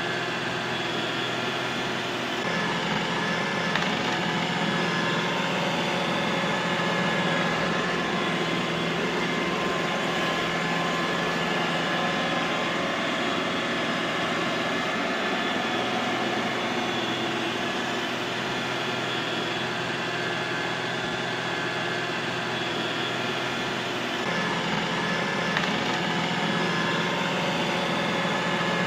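Robot vacuum cleaner running steadily: a continuous motor hum and whine with a few fixed tones, shifting slightly in tone a couple of seconds in and again near the end.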